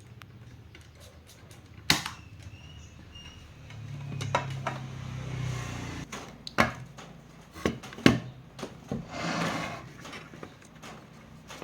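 Scattered sharp clicks and knocks of small parts and tools being handled on a workbench during speaker repair. A low hum rises about four seconds in and fades about two seconds later, and a short scraping hiss comes near the end.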